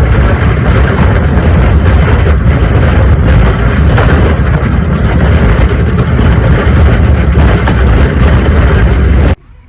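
Loud, steady rumbling noise, heaviest in the low end, with hiss above; it cuts off suddenly near the end.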